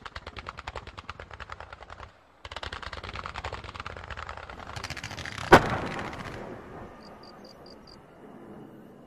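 Fireworks barrage: rapid volleys of shots firing about ten a second, with a short break about two seconds in. A single loud bang comes a little past halfway, then the firing fades, leaving faint high chirps near the end.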